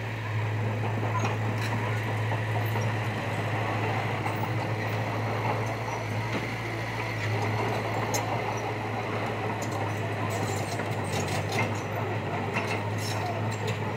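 Heavy construction machinery running steadily with a constant low engine hum, and scattered light clicks and knocks, more of them in the second half.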